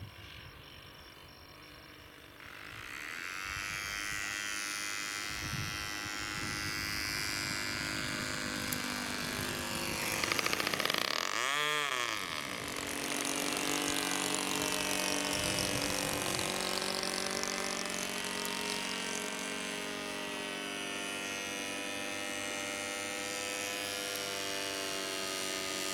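Small model-aircraft engine buzzing steadily as a radio-controlled model plane flies. It starts about two seconds in, and its pitch swoops near the middle as the plane passes closest.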